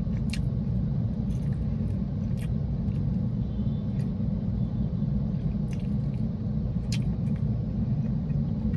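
Steady low rumble inside a parked car's cabin, typical of the car's engine idling, with a few short sharp clicks scattered through it.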